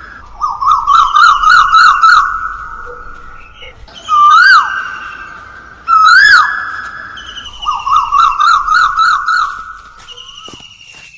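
A bird singing loud whistled phrases: single swoops that rise and fall, alternating with quick runs of about six warbled notes, the sequence heard twice.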